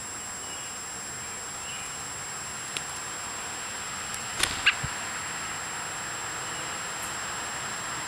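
Outdoor ambience: a steady high-pitched whine over a faint hiss, with a few sharp clicks and a brief chirp about halfway through.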